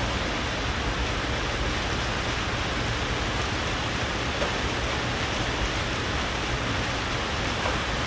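Steady rain falling, an even continuous hiss.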